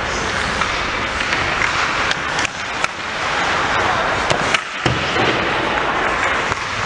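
Ice hockey play in a rink: a steady hiss of skates on the ice, broken by a few sharp clacks of sticks and puck, mostly around the middle.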